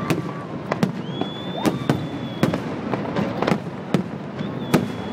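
Aerial fireworks shells bursting overhead in a rapid, irregular series of sharp bangs. A high steady whistle sounds twice over them, about a second in and again near the end.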